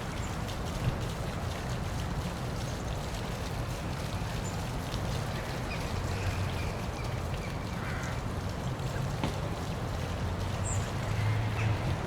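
Steady rush of water from a park waterfall, with a deep low rumble under it and a few faint, short high chirps scattered through.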